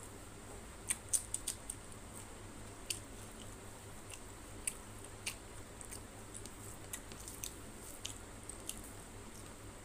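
Close-miked eating sounds of rice and fish curry eaten by hand: sharp, wet clicks and smacks of chewing and fingers working the food. A quick cluster comes about a second in, then single clicks scattered through the rest.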